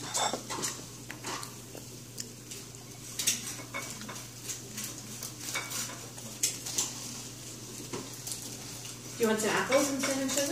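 Scattered light clinks and scrapes of dishes and cutlery, irregular and short, with a voice briefly near the end.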